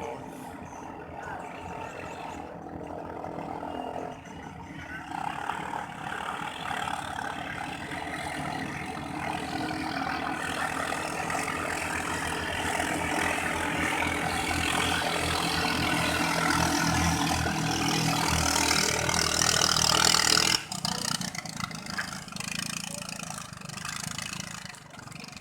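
Katinting longtail boat engine running and growing steadily louder, as if speeding up or coming closer, then dropping off suddenly about twenty seconds in.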